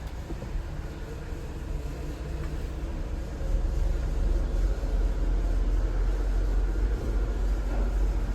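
Diesel engine of an XCMG XC870K mini wheel backhoe loader running with a low rumble, growing louder about three and a half seconds in.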